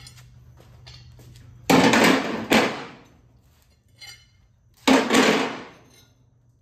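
Heavy steel mower-deck parts, the blades and spindle hubs of a 50-inch deck, clanking: two loud metal clangs about three seconds apart, each ringing out for about a second, with a smaller knock just after the first.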